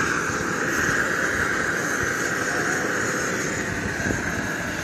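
Propane jet burner under a crawfish boiling pot, running with a steady, even rushing hiss.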